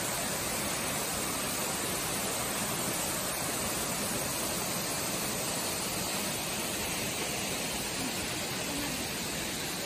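Waterfall plunging into a pool, a steady, unbroken rush of falling water.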